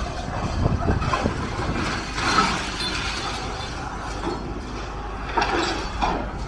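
Building demolition in progress: machinery breaking down masonry, with irregular clattering and scraping of falling rubble over a steady low engine rumble.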